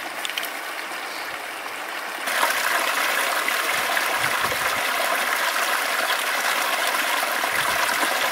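Running creek water, a steady rushing hiss that jumps suddenly louder about two seconds in.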